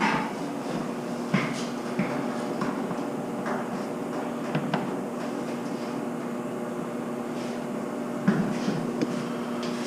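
Scattered clicks and light knocks, a few of them sharper, over a steady low hum.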